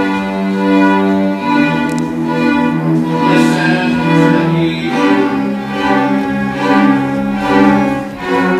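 A string ensemble of violins and cellos playing slow, held chords, moving to a new chord every few seconds.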